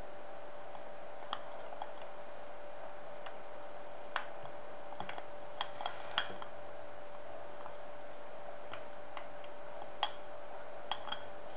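Scattered light clicks and taps, a dozen or so at uneven intervals, from a tool working inside a glass bottle to press a model ship's hull into the putty bed. A faint steady hum runs underneath.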